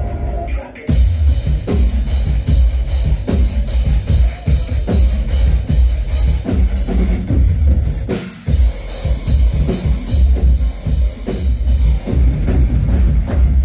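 Live rock band playing at full volume: electric guitars, bass and a drum kit with heavy kick drum and cymbals. The full band comes in about a second in after a short break, with another brief break a little past halfway.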